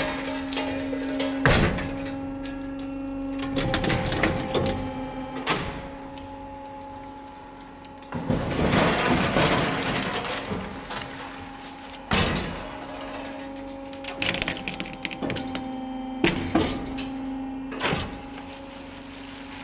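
Optima 2 automatic walnut and pecan cracking machine at work: a steady machine hum, with a loud clatter of cracking shells and rattling nuts breaking in every few seconds as each batch is cracked.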